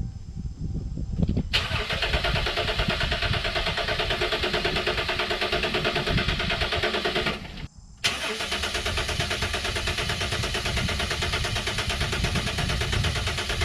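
A 2011 Dodge Ram pickup's starter cranks the engine steadily without it catching, in two long tries of about six seconds each with a brief break between them. It is a no-start that the owner puts down to the engine not getting fuel, and he suspects the fuel pump relay built into the TIPM.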